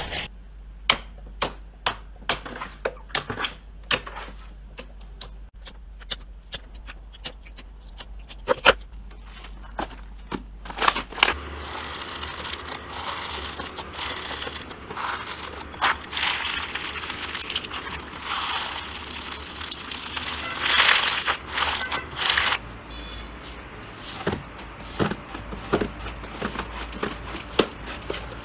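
Slime being squeezed, poked and pressed by hand, giving sharp wet clicks and pops. From about eleven seconds in, sequin-filled slime gives a denser crinkly crackle, and near the end the separate clicks return.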